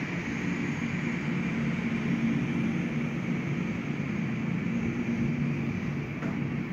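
Southwest Boeing 737-700's CFM56 jet engines running at taxi idle as the plane taxis past, a steady jet whine and rumble.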